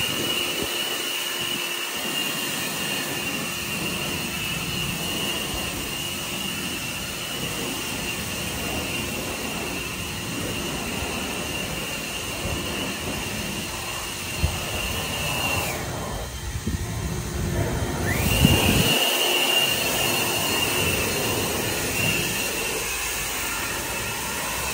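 EGO battery-powered leaf blower running at full blast, a steady rush of air with a high whine, blowing water off a freshly washed car. About two-thirds of the way through it winds down, stops for a couple of seconds, then spins back up.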